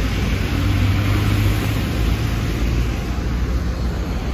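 City street traffic with the steady low hum of a large vehicle's engine, a bus close by, loudest in the first couple of seconds, over a constant rush of road noise.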